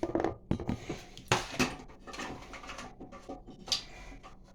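Hard plastic flush-valve tower parts of a toilet clicking and knocking as they are handled and taken apart, with several sharp clacks in the first two seconds and one more near the end.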